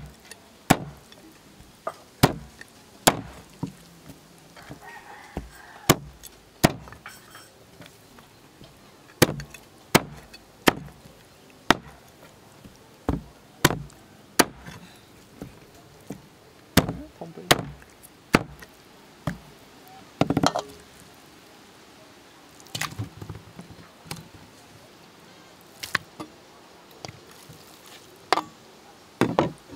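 A heavy cleaver chopping a snake into chunks on a round wooden chopping board. The blade comes down in sharp chops, one every second or so at an irregular pace, cutting through the snake's body and backbone.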